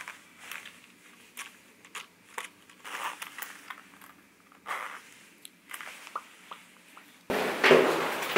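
Small clicks and brief rustles of a round leather zip bag being handled and its zipper pulled shut. About seven seconds in, louder steady background noise cuts in.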